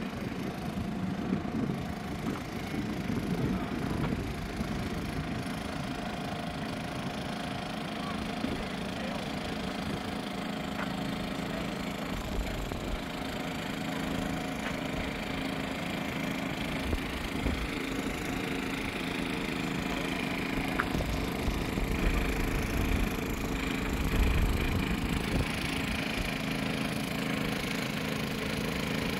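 An engine running steadily with an even hum, over a gusting low rumble of wind on the microphone that swells twice.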